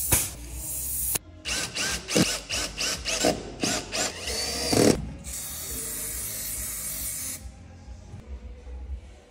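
Power tools driving bolts into a caravan chassis. A power ratchet runs briefly, then about a dozen short bursts of spinning follow one after another. Near the middle, a steady run of about two seconds, after which it goes quiet.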